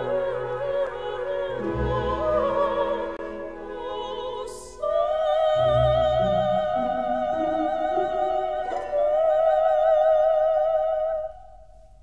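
Operatic classical music: a singer with wide vibrato over orchestral accompaniment holds one long high note from about five seconds in, then the music stops about a second before the end.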